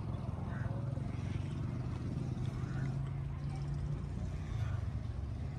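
A steady low motor drone runs unbroken, with no clear rise or fall.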